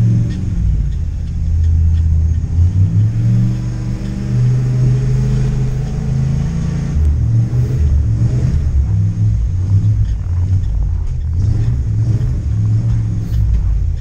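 Ford F-250 pickup's big-block 460 V8 engine being driven on ice, revving up and down repeatedly with its pitch rising and falling.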